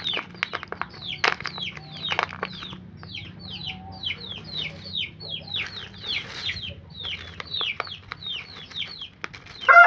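Chickens peeping: a steady run of high, falling peeps, about two a second, with scattered clicks. A rooster starts a loud crow right at the end.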